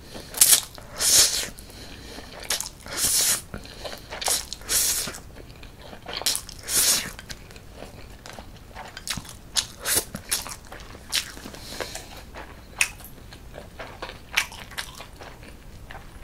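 Close-up eating sounds of spicy cold mixed noodles: a run of wet slurps as the noodles are sucked in, then quicker, sharper chewing smacks in the second half.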